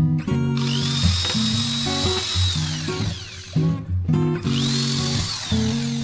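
Small electric hand drill run twice into a thin bamboo cage rail: each run spins up with a rising whine, holds steady, then winds down. The first lasts about two and a half seconds, the second about a second, over guitar music.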